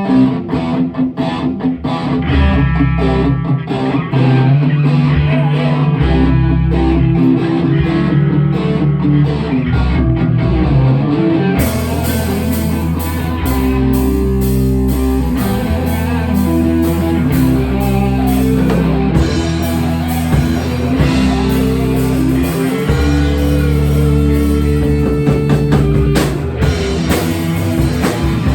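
Rock music with guitar and drums; the sound turns suddenly brighter and fuller about twelve seconds in.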